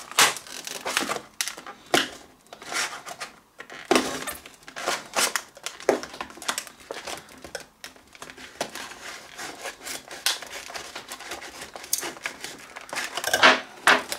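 Stiff clear plastic blister packaging crackling and crinkling in irregular bursts as it is cut open with a knife and pried apart by hand, loudest near the end as the plastic is pulled apart.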